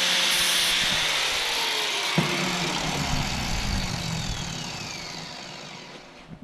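Electric sanding or grinding tool running, then winding down after switch-off: a sharp click about two seconds in, and its whine falls in pitch and fades over the next few seconds.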